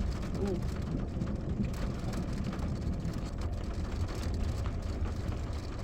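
Light rain ticking in scattered drops over a steady low rumble.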